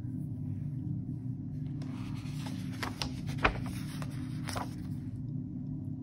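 A picture book's page being turned by hand: paper rustling with a few light taps and flicks, starting about two seconds in and ending near five seconds, over a steady low hum.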